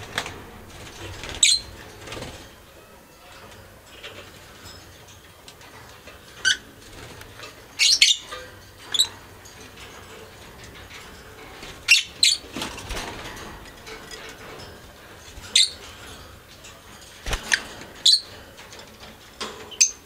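Pet budgerigars giving short, sharp chirps, a dozen or so scattered at irregular intervals with quiet gaps between.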